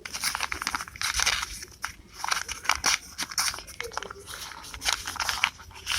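Paper crinkling and rustling in irregular bursts with sharp crackles, as paper is handled and unfolded.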